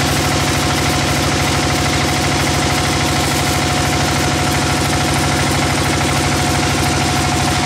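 Large vertical bandsaw mill running and sawing through a thick wooden slab. It makes a loud, steady machine drone with a fast, even pulsing and a constant steady tone on top.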